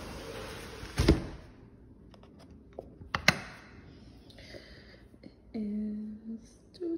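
A door being shut as someone comes inside: a loud thunk about a second in, after which the outdoor hiss dies away, then a sharp click a couple of seconds later and a few light ticks.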